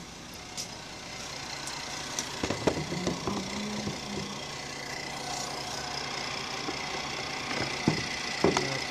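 A 2005 Dodge Charger's 3.5-litre V6 idling steadily, the scan tool having logged a misfire on cylinder 6. A few sharp clicks and knocks sound about two and a half seconds in and again near the end.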